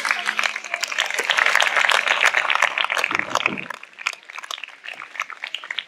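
Audience applauding, a dense patter of claps that thins to a few scattered claps over the last couple of seconds.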